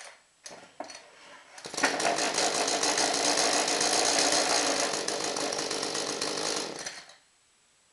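Echo CS-310 two-stroke chainsaw engine, after a couple of short knocks, starts up about two seconds in, runs steadily for about five seconds, then cuts off abruptly.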